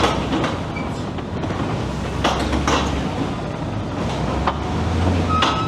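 Heavy machinery sliding a drilling rig: a low mechanical hum that swells and fades, with scattered sharp metallic knocks and clanks, and a brief thin whine near the end.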